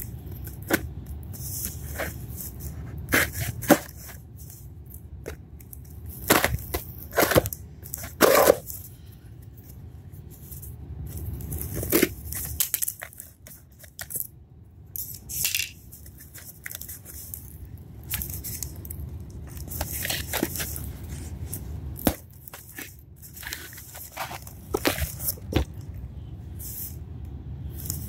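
Scissors cutting the packing tape on a cardboard shipping box, then hands peeling the tape and tearing the cardboard flaps open: irregular snips, rips and crackles of tape and cardboard.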